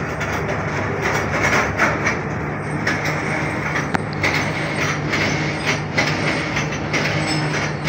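Passenger train running along the track, heard from aboard: a steady low rumble with scattered clicks of the wheels on the rails.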